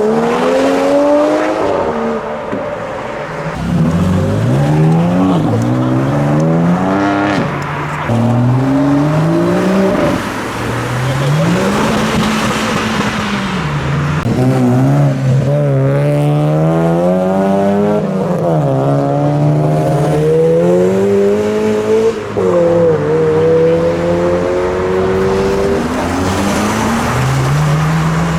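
Modified car engines revving hard as cars accelerate away. The pitch climbs steeply and drops back repeatedly, like upshifts through the gears, one car after another.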